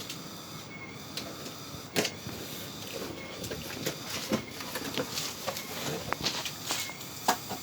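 Parts and packaging of a newly unboxed sprayer tank being handled: a sharp knock about two seconds in, then a run of small clicks and taps.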